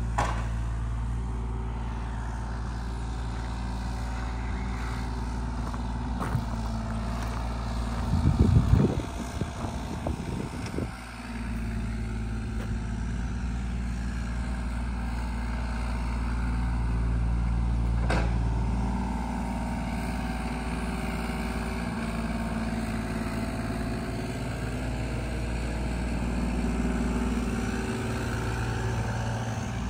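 An engine idling steadily, a low even hum at constant pitch, with a louder rough burst of noise lasting about two seconds around eight seconds in.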